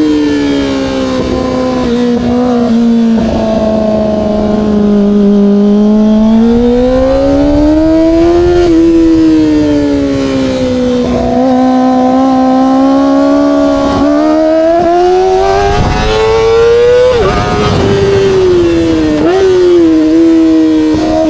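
Kawasaki ZX-25R SE's inline-four engine running through an Austin Racing aftermarket exhaust while riding. The engine pitch slowly falls and climbs again with the throttle several times, then drops sharply twice near the end.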